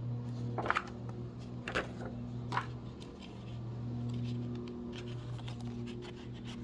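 Photo prints being handled and shuffled, a few brief soft papery rustles over a steady low hum.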